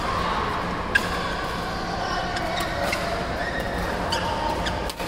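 Sharp racket strikes on shuttlecocks, the loudest about a second in and several fainter ones later, over the steady din of a busy badminton hall.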